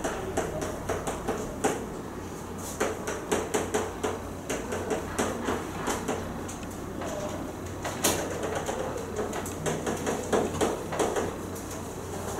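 Chalk writing on a chalkboard: a stream of quick, irregular taps and short scratchy strokes as figures are written. A low steady hum runs underneath.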